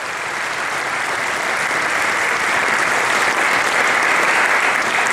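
Audience applause, a dense steady clapping that grows slightly louder.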